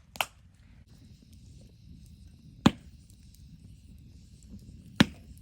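Wood fire burning in a drum-can stove, two sharp pops about two seconds apart over a faint steady hiss.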